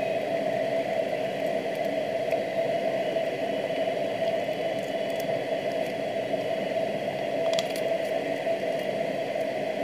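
Steady whirring background noise with a constant hum, even in level throughout.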